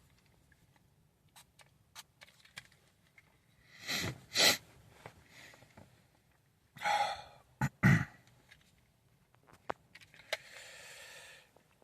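A person's breathing: a few short, noisy breaths and sniffs, with small clicks and a louder knock about two-thirds of the way through, then a steady breathy hiss of about a second near the end.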